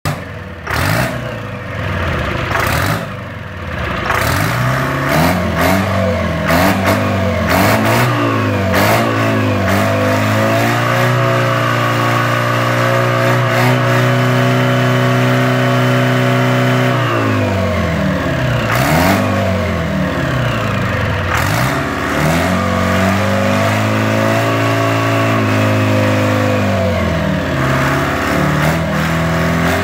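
Detroit Diesel engine being run up: a series of quick rev blips, then held at high revs for several seconds before dropping back. It is blipped again, held high a second time, and drops back near the end.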